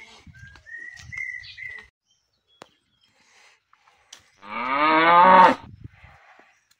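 A cow moos once, about a second long and rising in pitch, some four and a half seconds in. Before that, in the first two seconds, there is a high, thin whistling tone in short pieces.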